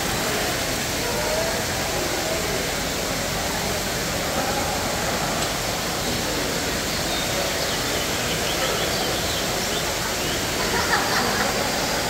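Fountain water splashing in a steady, even rush, with a murmur of voices underneath.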